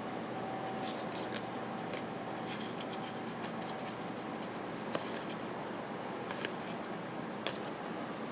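Trading cards being handled and flipped through: faint scattered slides and light clicks of card stock over a steady background noise.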